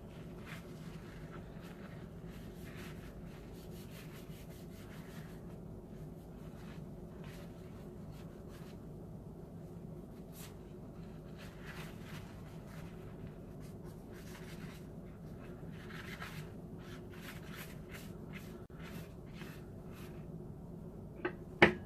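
Table knife scraping a spread onto a slice of dense seeded psyllium-husk bread: light scraping strokes on and off over a steady low hum. A sharp clack near the end as the knife is put down on the table.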